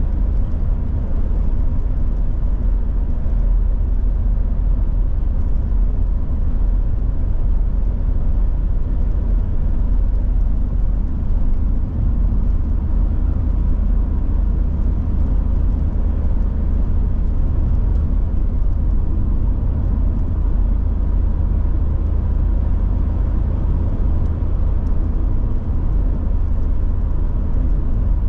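Volvo 740 GL driving at a steady pace: an even, low drone of engine and road noise with no changes in pitch or level.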